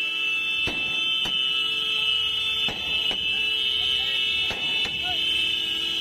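Multi-shot aerial firework cake firing shells one after another, a sharp pop roughly every two-thirds of a second, over a steady high whistle.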